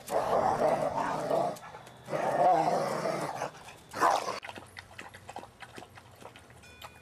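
Two dogs play-wrestling, growling in two long, rough stretches and a shorter burst about four seconds in. After that come quieter, quick light clicks of dogs lapping water.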